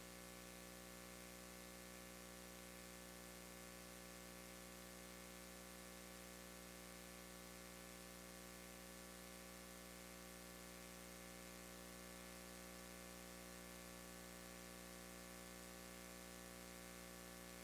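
Near silence: a faint, steady electrical hum with a soft hiss, unchanging throughout.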